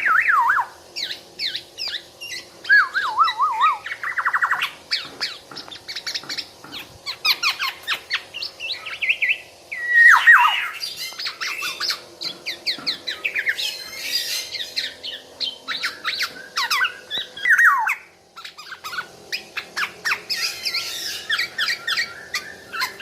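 Kepodang (black-naped oriole) singing non-stop: a fast, varied run of chirps, clear whistles and downward-sliding notes, with a quick trill about four seconds in.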